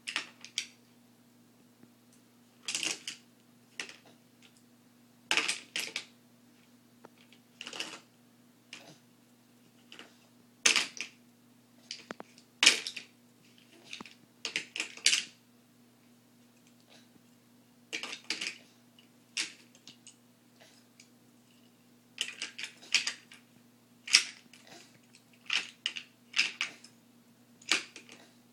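Small plastic toy cars clattering on a plastic spiral-ramp race car toy: irregular bursts of rattling clicks, every second or two, with pauses between.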